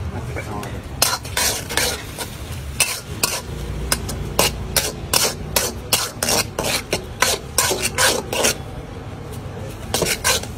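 Flat spatula scraping and stirring chopped green chillies and onions frying in a steel kadai: repeated quick scrapes, about two to three a second, with a short pause near the end.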